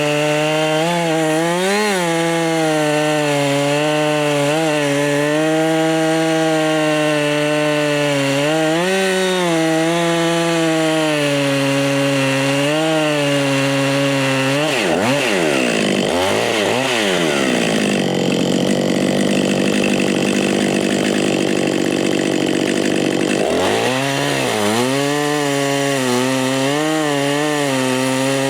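Two-stroke chainsaw running at high speed while cutting wood, its engine pitch dipping every few seconds under the load of the cut. About halfway through the pitch drops sharply and wavers, runs rougher for several seconds, then climbs back to full speed near the end.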